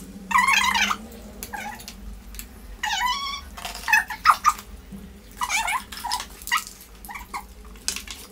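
Dog whining: a string of short, high-pitched whines that bend up and down in pitch, repeated about ten times.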